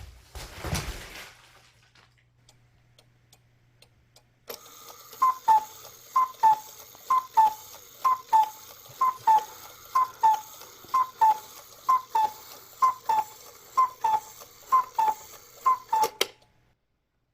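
Cuckoo clock calling the hour: a falling two-note 'cuckoo' with a click from the mechanism, repeated evenly about once a second, twelve times, and ending with a click. A brief noise comes just before it at the start.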